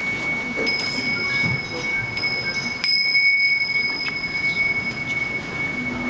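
A pair of small hand cymbals struck together a few times, each strike renewing a long, steady, high ring; the sharpest strike comes just under three seconds in.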